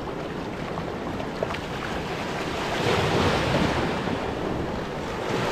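Small waves washing up onto a sandy beach, swelling louder about three seconds in, with wind buffeting the microphone.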